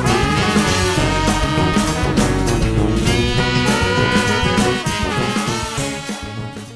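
Background music in an upbeat swing style with brass instruments and a steady beat, fading out over the last two seconds.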